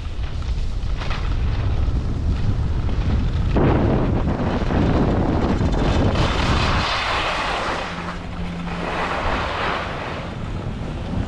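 Wind rushing over the microphone with a rumbling buffet, overlaid by a loud hiss that swells from about three and a half seconds in, typical of skis sliding and scraping on snow during a descent.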